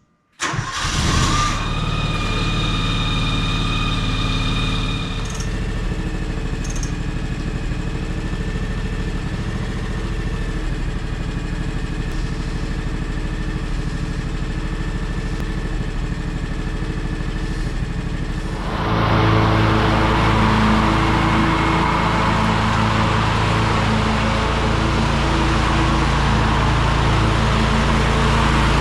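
Riding lawnmower's engine starting, with no cranking heard, then running steadily. It gets louder and rougher about two-thirds of the way through, as if the throttle is opened up.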